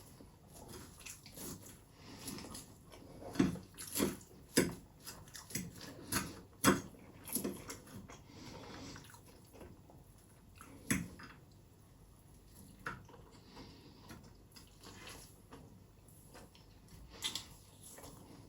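Close-miked eating sounds: irregular wet bites, smacks and chewing, with a handful of much louder smacks in the first half and a quieter stretch in the middle.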